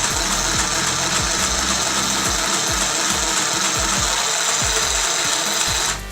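Mini electric sewing machine running steadily while stitching, its motor whining and needle mechanism rattling. It stops suddenly near the end.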